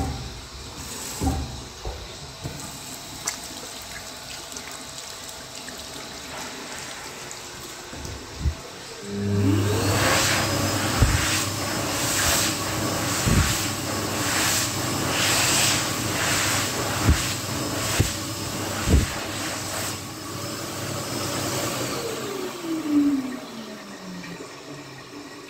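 A PHS Airstream Vitesse Comfort high-speed hand dryer starts about nine seconds in, its motor whine rising quickly to a steady pitch over loud air noise. The blast swells and dips as hands move in the airflow, with a few knocks. Near the end it shuts off and the whine falls away as the motor winds down. Before it starts there is only faint room noise with a few knocks.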